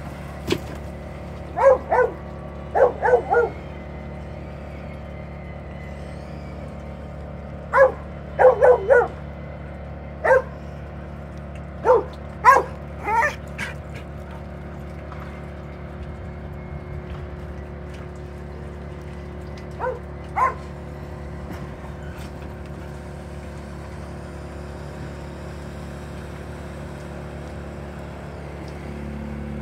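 A dog giving short, high barks and yips in scattered clusters: a few in the first few seconds, a run between about 8 and 14 seconds, and two near 20 seconds, over a steady low hum.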